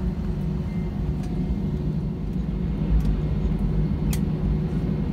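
Jet airliner cabin noise while taxiing: a steady low rumble with a constant hum, and a few faint clicks.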